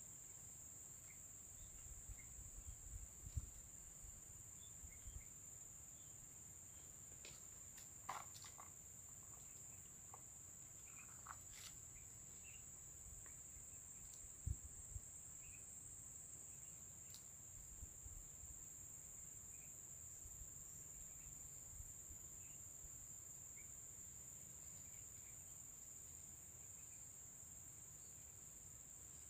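Steady, high-pitched drone of insects calling without a break, with a few faint clicks and rustles now and then.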